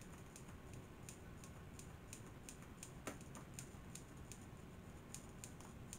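Faint, light clicking and ticking of small hard parts being handled inside an opened vintage cassette recorder, several unevenly spaced clicks a second over low room hiss.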